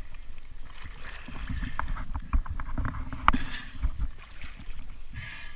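Water sloshing and splashing as a scuba diver swims at the surface pushing an inflatable dive float, with irregular low knocks and short clicks, the sharpest about three seconds in.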